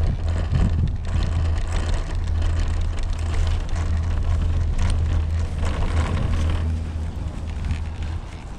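Steady wind rumble on the microphone of a rider on a Doppelmayr detachable quad chairlift, with rolling and rattling from the haul rope and chair grip running over the tower sheaves as the chair passes a lift tower about midway.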